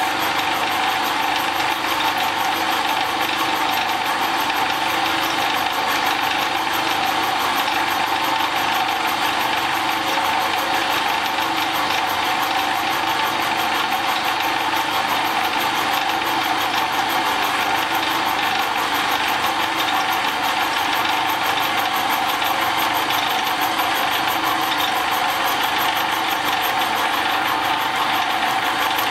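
Milling machine running, its end mill cutting a bronze pad on a cast-iron shaper rocker arm: a steady machining noise that holds even throughout.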